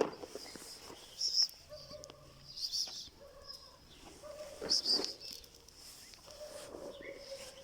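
Short, high bird chirps now and then, about four times, over a faint steady hum.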